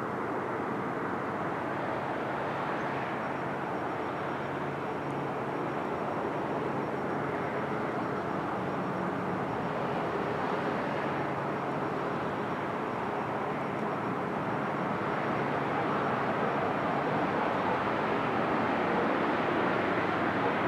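Steady drone of distant engines, growing a little louder near the end.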